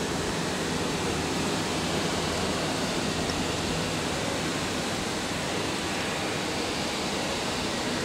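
Massey Ferguson 7618 tractor's six-cylinder diesel working steadily under load as it pulls a five-furrow plough through the soil: an even, unbroken rushing drone.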